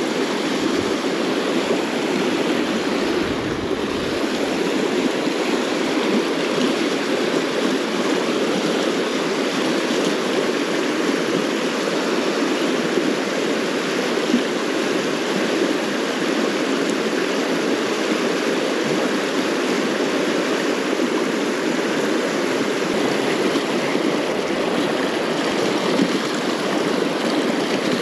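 River water rushing steadily, the even noise of a fast-flowing salmon river.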